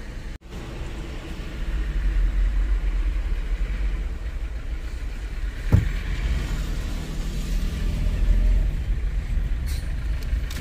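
Small car's engine and road rumble heard from inside the cabin as it moves off and drives slowly, with a single short knock about six seconds in.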